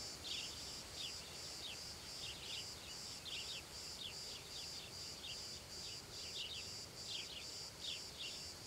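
Outdoor nature ambience: insects chirping in a steady high pulse about three times a second, with short falling bird chirps scattered through it.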